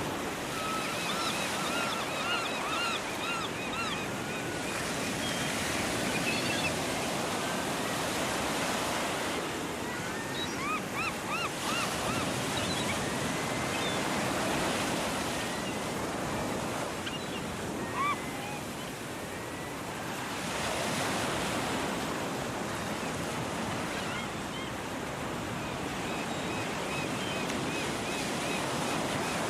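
Sea surf washing on a shore, swelling every few seconds as waves break. Gulls call over it in quick runs of short rising-and-falling cries near the start and about ten seconds in, with a single louder cry a little past halfway.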